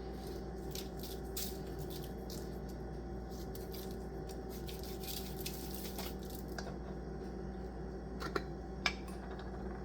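A steady low hum with faint scattered taps, then two light clinks near the end: kitchen utensils against a dish.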